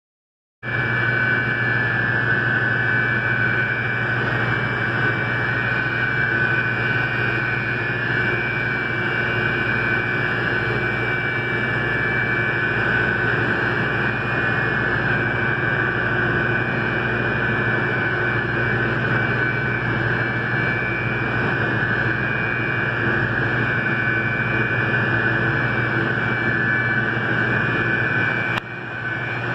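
Centrifugal water chiller plant running under load: a steady loud drone with a low hum and a high steady compressor whine. The level dips briefly near the end.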